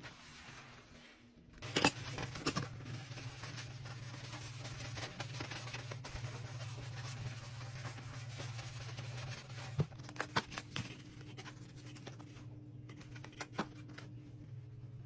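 Scrub brush scrubbing a foamy kitchen counter and stainless steel sink: scratchy rubbing over a steady low hum, with a few sharp clicks and knocks, the loudest about two seconds in and again around ten seconds in.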